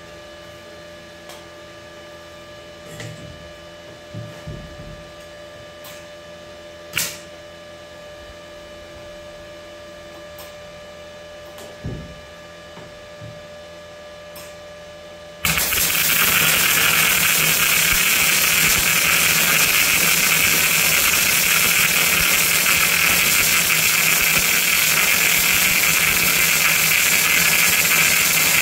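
A MIG/MAG welding arc on steel strikes suddenly about halfway through and then runs steadily and loudly as a bead is laid. Before it there is only a faint steady hum and a few short knocks as the torch is set against the steel.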